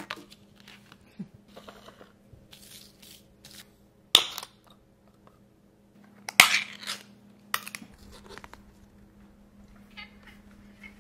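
Handling noises over a steady low hum: faint rustling and crinkling, with three sharp knocks about four, six and a half and seven and a half seconds in, the middle one loudest.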